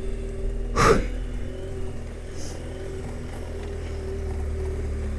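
Adventure motorcycle engine running steadily at low speed on a grassy dirt track, with a brief burst of noise about a second in.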